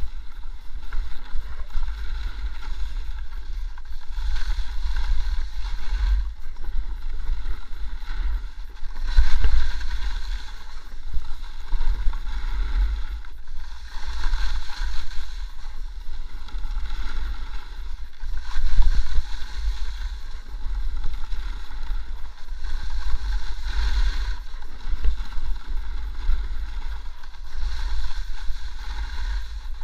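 Wind buffeting the action camera's microphone during a fast descent on snow, a heavy steady rumble, with the hiss of edges scraping across the snow swelling every four to five seconds as the rider turns.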